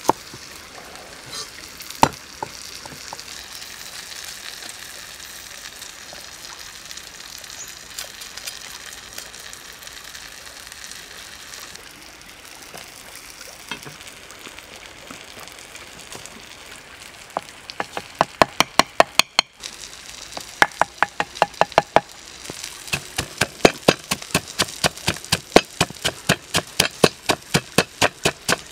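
Wooden pestle pounding garlic, red chili and salt in a wooden mortar: sharp knocks at about three a second, starting a little past halfway, with a brief break. Before that, a steady hiss, with two cleaver chops on a wooden board near the start.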